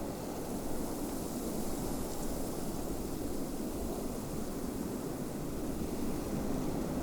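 Steady snowstorm wind, a low rushing noise with a fainter hiss above it and no distinct events.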